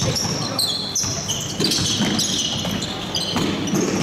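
Basketball game sounds: many short, high-pitched sneaker squeaks on the court floor, overlapping one another, with a basketball being dribbled.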